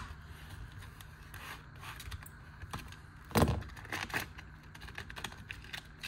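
Knives and plastic blister packaging handled on a cutting mat: light scrapes and small clicks, with one louder knock about three and a half seconds in.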